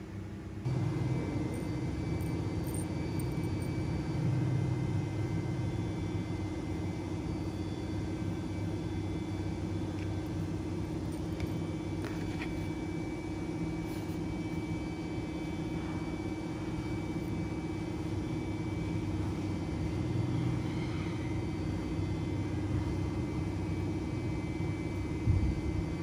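Steady low rumble with a constant mechanical hum, getting louder less than a second in, with a few faint ticks and one short sharp knock near the end.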